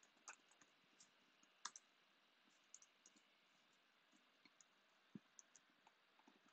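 Near silence with faint, scattered clicks from working a computer's mouse and keys, the clearest a little over a second and a half in.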